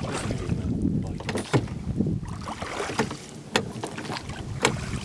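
Rowing a wooden rowboat: oars working in metal rowlocks give several sharp clunks through the strokes, over a steady wash of water and wind rumble on the microphone.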